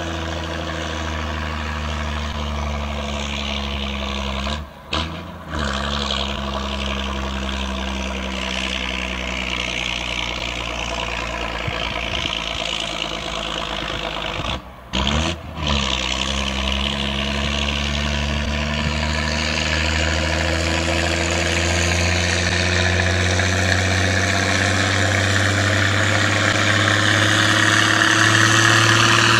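A farm tractor's diesel engine running steadily as it comes closer, pouring black smoke. The sound cuts out briefly twice, and over the last stretch it grows louder and rises in pitch.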